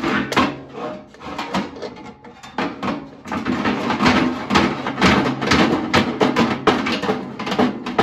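Background music with a drum beat.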